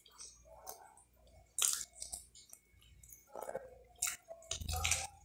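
Close chewing, biting and wet mouth sounds of someone eating braised pork ribs by hand, with a few short sharp clicks and smacks, the loudest about a second and a half in and again near the end.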